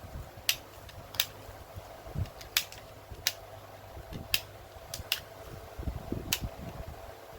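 A puzzle ball fidget toy being turned and pushed by hand while it is solved, giving about seven sharp separate clicks at uneven intervals, over a faint steady hum.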